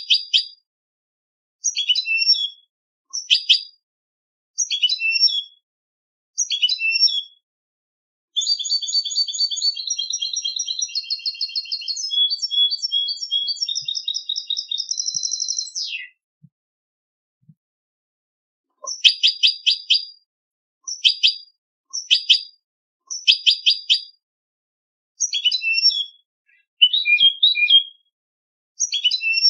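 European goldfinch singing competition-style song: short high twittering phrases, then a long unbroken run of rapid trills lasting about seven seconds. After a pause of about three seconds the short phrases resume.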